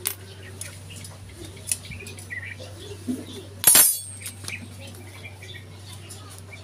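Light metal clicks and scrapes from hands working a motorcycle's SC Project slip-on exhaust muffler loose, with one sharp metallic clank that rings briefly about three and a half seconds in.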